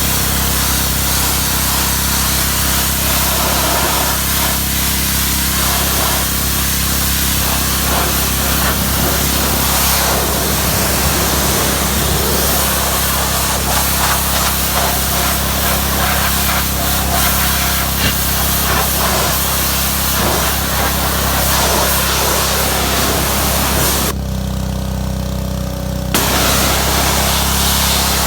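Pressure washer spraying: a steady hiss of the water jet over the hum of the machine. Near the end the spray stops for about two seconds while the machine keeps running, then starts again.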